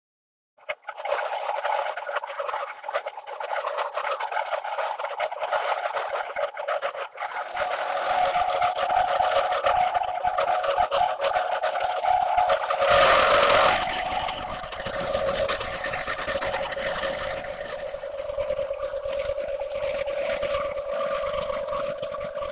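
Milling head on a planer mill driving a face mill along a long metal shim: a steady machining noise of the cutter cutting and the spindle running, with a louder burst lasting about a second a little past the middle. The sound starts suddenly just after the beginning.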